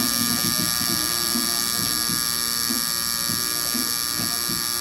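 Tattoo machine running with a steady electric buzz as the needle works ink into the skin.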